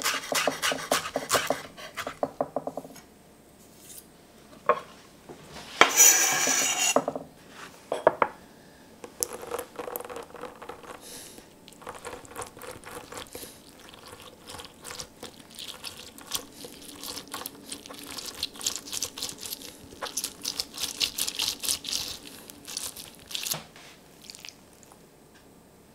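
Chef's knife chopping fresh coriander on a small wooden board in quick strokes. Later a lime half twisted and ground on a ceramic hand citrus juicer, a long run of rapid rubbing, squeaking strokes.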